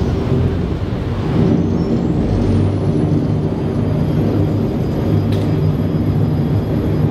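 Niagara City Cruises tour boat's electric propulsion running with a steady low hum as the boat manoeuvres alongside the dock, over churning water. A high whine rises about a second and a half in and then holds steady.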